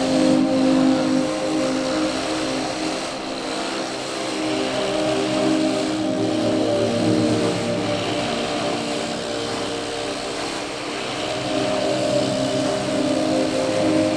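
Old multi-spindle clog-carving copying machine running, its cutters hollowing out three wooden clogs at once. A steady machine drone with several held tones over the noise of wood being cut, swelling and easing a little in loudness.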